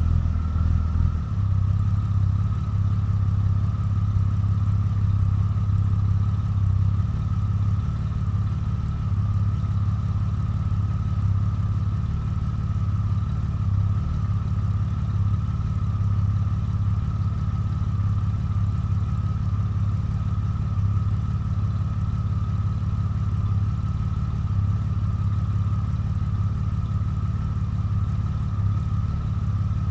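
DeLorean's 3.0-litre PRV V6 idling steadily in gear at about 750 RPM through its exhaust, a low, even drone. A faint steady whine runs above it, and the drone shifts slightly about a second in.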